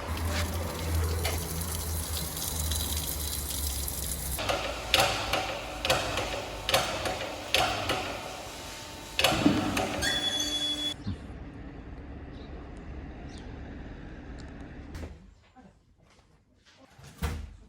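Tyre-shop workshop noise: a steady low hum with a hiss of rushing air, then a run of sharp metallic knocks, dying away to quiet near the end.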